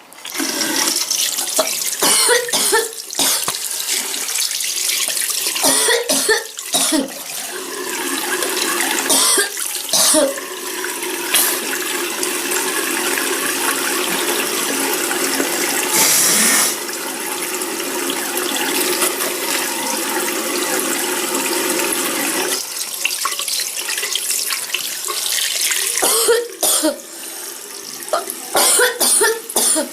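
Water running steadily from a tap, switched on at the start. Short coughs break over it: several in the first ten seconds, one in the middle and a cluster near the end.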